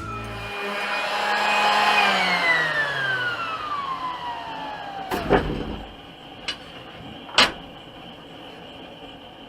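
A small power tool's motor runs up with a whine that then falls steadily in pitch as it winds down, followed by a sharp knock about five seconds in and two lighter clicks near the end.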